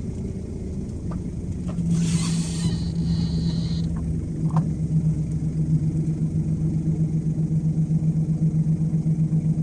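A car's engine and road noise heard from inside the cabin while driving: a steady low hum. There is a brief hiss about two seconds in, and from about halfway the hum takes on a regular pulsing.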